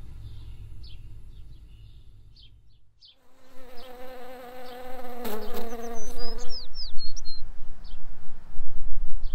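A flying insect buzzing close by with a wavering hum that starts suddenly about three seconds in, with a few short high bird chirps in the middle.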